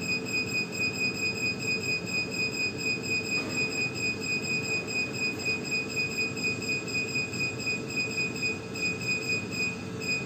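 Steady high-pitched electronic whine from a Biobase BBS-V1300 laminar flow cabinet with its UV sterilising lamp running. The whine pulses in a fast, even rhythm over a low steady hum.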